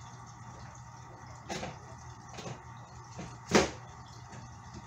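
Wire door of a plastic pet carrier being handled: a few knocks and rattles, the loudest about three and a half seconds in, over a steady low hum.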